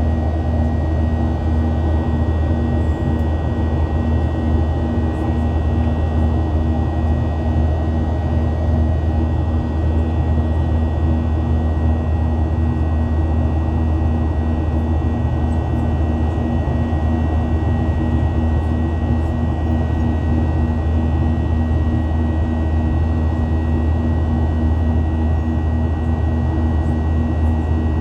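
Boeing 737-800's CFM56 jet engines droning as heard inside the passenger cabin: a steady low roar and hum with a thin, constant high whine over it.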